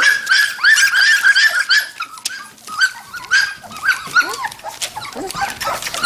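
A litter of young red standard poodle puppies yipping and whining together, many short high-pitched cries overlapping. The cries come thick and fast for the first two seconds, then thin out into scattered yips.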